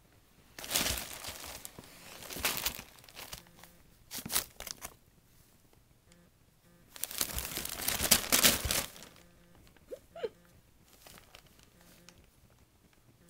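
Glossy Christmas wrapping paper crinkling and rustling in several bursts as a kitten scrambles and pounces underneath it, with quiet pauses between. A brief high squeak comes about ten seconds in.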